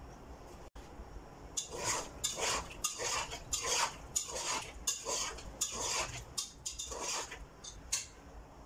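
A slotted spatula stirring chicken and mushrooms in a nonstick pot, scraping and knocking against the pan in quick repeated strokes, about two or three a second. The stirring starts about a second and a half in.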